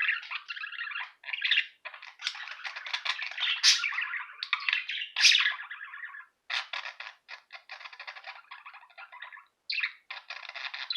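Several pet birds chattering and chirping in rapid runs, broken by brief pauses about six seconds in and again near the end.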